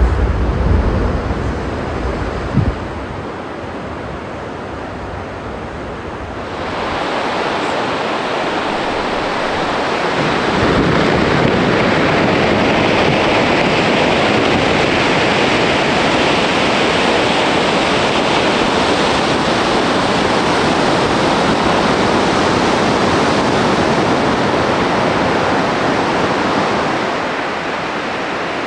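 Ice collapsing from the front of the Russell Glacier: a deep rumble with a thud in the first few seconds, then from about ten seconds in a long, steady rushing noise as ice and ice dust pour down, easing near the end.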